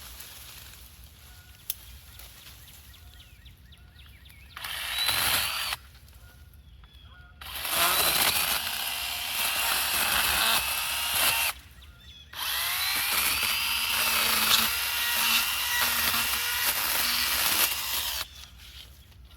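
Echo DHS-3006 56-volt battery pruning saw running in three trigger pulls: a short burst about five seconds in, then two longer runs of several seconds each, its whine dipping and rising in pitch as it cuts butterfly bush stems. The motor stops dead between runs when the trigger is released.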